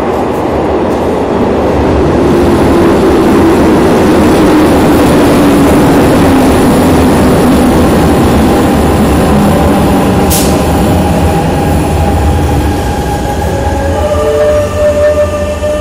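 Series 8000 metro train running into the station and slowing to stop. Loud wheel and motor noise carries a tone that falls slowly in pitch as it slows. Near the end, several steady squealing tones come in as it brakes.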